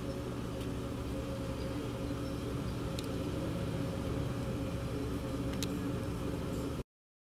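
Steady low hum of a car idling in traffic, heard from inside the cabin, with a few faint ticks. It cuts off abruptly to silence near the end.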